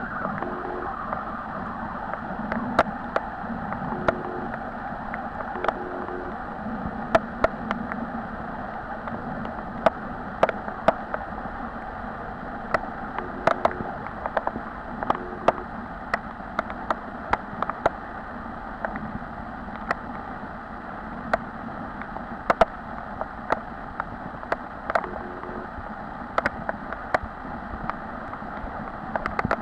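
Underwater ambience heard through a camera: a steady muffled rush with sharp clicks scattered irregularly through it.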